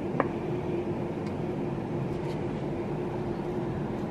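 A steady machine hum with one constant low tone, like an appliance or fan running, and a single short click just after the start.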